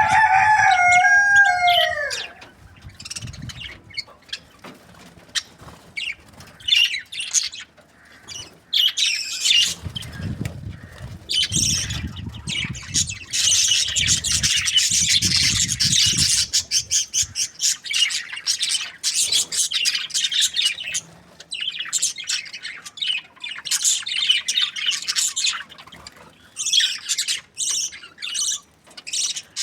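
A rooster's crow trails off, falling in pitch, in the first two seconds. Then budgies chatter and chirp busily and almost without pause, with a low rumble underneath for several seconds in the middle.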